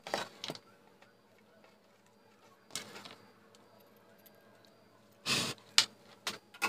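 Short clicks and scrapes of wire ends being handled and fitted onto the two contacts of a small coloured light bulb: a few at the start, one near the middle, and a cluster in the last second and a half, the loudest about five seconds in.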